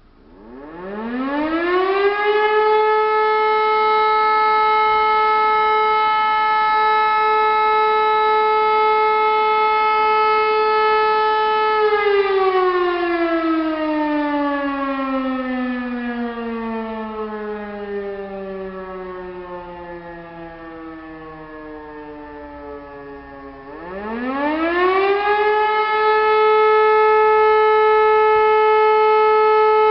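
E57 electric motor siren sounding the German fire-alarm signal. It spins up to a loud, steady tone and holds it for about ten seconds, then winds down with falling pitch for about twelve seconds. It spins up again and holds the tone for the second burst of the signal.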